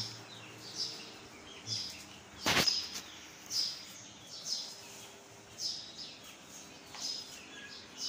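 Young chickens peeping: short, high, falling peeps about once a second, over the faint steady hum of a fan. One sharp click about two and a half seconds in.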